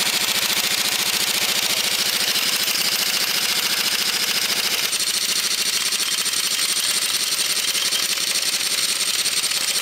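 Pneumatic impact wrench hammering continuously in reverse, a loud fast rattle, with a slight change in tone about halfway through. It is working at a seized threaded fitting in the hub of a steel tank road wheel, which a cracked washer had left stuck.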